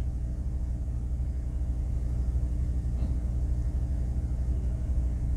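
Steady low background hum made of several unchanging low tones, like a machine or electrical hum in the room.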